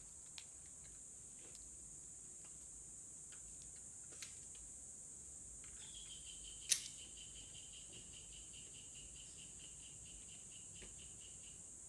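Steady high-pitched drone of insects, broken by a few sharp cracks of distant Glock 48 pistol shots; the loudest crack comes about two-thirds of the way through. A second, lower pulsing insect trill joins about halfway and runs almost to the end.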